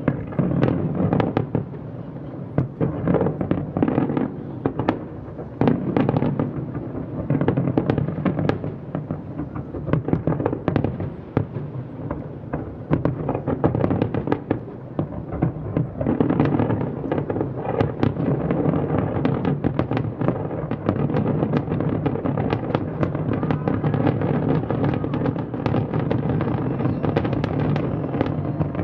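Large distant fireworks display: a rapid, unbroken stream of bangs and pops from many shells bursting over a steady rumble, growing denser and more continuous a little past halfway.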